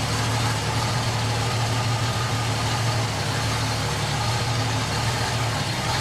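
Ford 200 straight-six with throttle-body fuel injection idling at about 750–790 rpm, a steady, slightly uneven burble.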